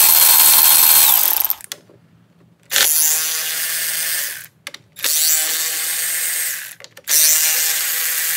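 Milwaukee cordless ratchet running in short bursts to back out bolts with a 5/16 socket: a run that stops about a second in, then three more runs of a second and a half to two seconds each.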